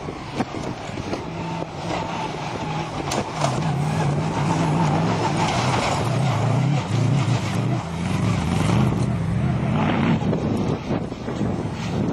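Off-road race car's engine running hard as it passes, growing louder from about a second in and loudest through the middle, with wind buffeting the microphone.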